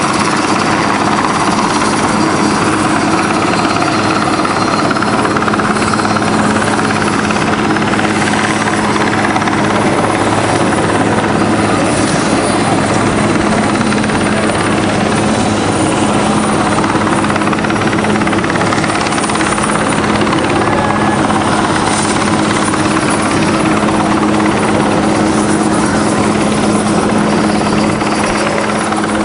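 Large utility helicopter hovering overhead while lifting a steel lattice tower section on a long line: a steady, unbroken rotor and turbine din with a constant low hum.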